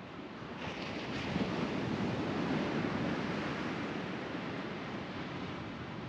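Small ocean waves breaking on the beach: the surf noise swells about a second in and slowly fades.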